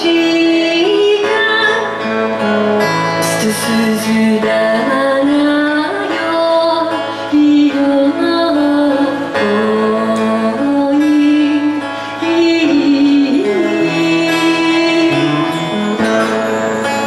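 A woman sings a slow melody of long held notes, accompanied by a strummed acoustic guitar and a bass guitar.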